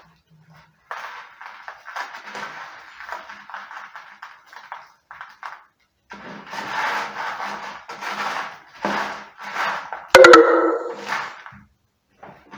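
Fine bonsai substrate grit pouring and rattling from a plastic bag into a plastic pot, in two long spells, then a sharp loud knock with a brief ring about ten seconds in.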